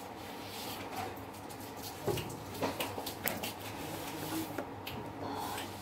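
A few scattered clicks of keys pressed on a laptop keyboard, over a low steady room hum.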